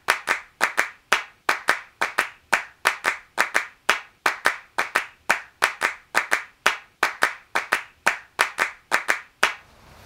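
Rhythmic handclaps in steady time, about three claps a second in a repeating pattern, as a percussion soundtrack; they stop shortly before the end.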